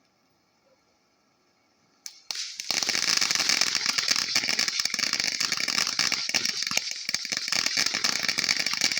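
A ground fountain firework going off: a sharp pop about two seconds in, then a continuous dense crackling and hissing spray of sparks for about seven seconds.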